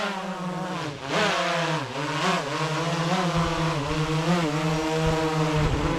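DJI Phantom quadcopter's propellers buzzing as it descends to land, the pitch wavering up and down as the motors adjust. About halfway through, a low rumble of air buffeting the microphone joins as the drone comes close.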